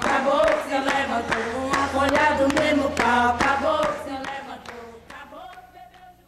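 Voices singing a song with a steady beat of sharp percussive hits, about three a second, fading out over the last two seconds.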